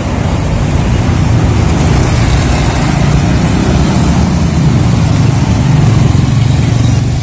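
Road traffic with motorcycles and cars passing, a steady low rumble of engines and tyres.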